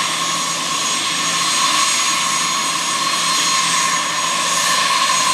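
Dassault Falcon 50 business jet's turbofan engines running at taxi idle: a steady jet whine with one strong mid-pitched tone over a constant rushing noise.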